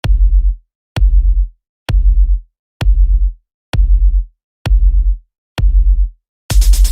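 Bass boom sound effect: a deep electronic sub-bass hit with a sharp click at the front, repeated about once a second, eight times. Each boom rings for about half a second with a slight wobble, then stops. The last one, near the end, is joined by a brighter electronic beat.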